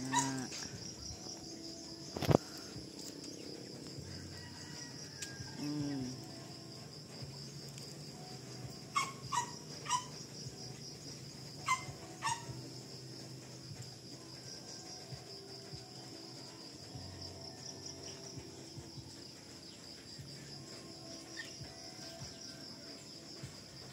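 Insects trilling steadily in a high, pulsing chorus. A few short, sharp chirps come near the middle, and a single knock about two seconds in.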